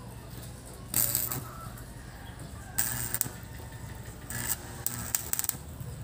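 Repaired metal wheelbarrow being moved, scraping and rattling in three short bursts.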